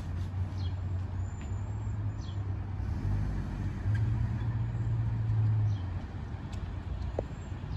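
Pickup truck driving across a railroad grade crossing: a low engine and road rumble that grows louder as it passes, about four to six seconds in.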